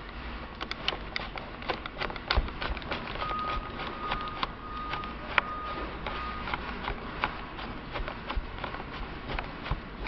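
Hand screwdriver driving a screw into a housing: a run of quick, irregular clicks and ticks from the tip and the turning screw. A thin steady tone sounds for about three seconds in the middle and breaks off a few times.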